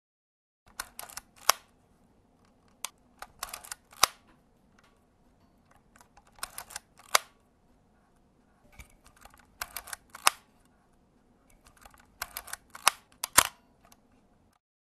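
Camera shutter clicking: small clusters of sharp clicks every two to three seconds.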